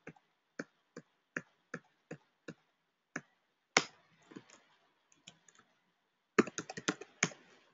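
Computer keyboard typing: single keystrokes at a slow, even pace for the first three seconds, a few scattered taps, then a quick run of keystrokes near the end.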